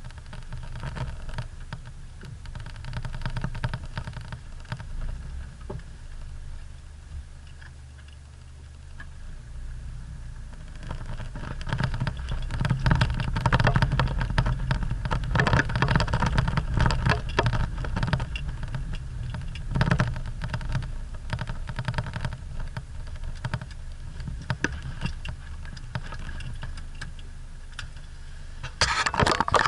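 Hyundai Galloper 4x4 driving slowly over a gravel dirt track, heard from inside the cabin: a steady low engine hum with a dense run of small clicks and knocks from stones under the tyres and the body jolting. It grows louder for a stretch about a third of the way in, then eases back.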